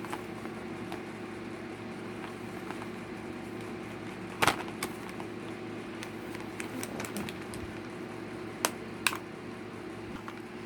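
A small plastic package being handled and opened: a few sharp clicks and faint taps, one loud click about halfway through and two more near the end, over a steady hum.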